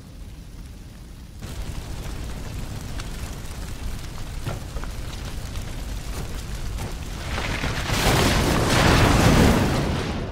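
A large fire burning, a steady rushing noise with scattered crackles, swelling into a loud rumble about eight seconds in and then easing off.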